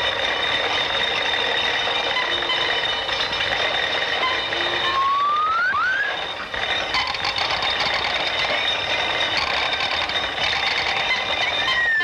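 Sound effects on an early sound-film track: a steady whirring noise with a high steady tone running through it. Short whistle-like pitch glides rise about five to six seconds in, and a falling glide begins at the very end.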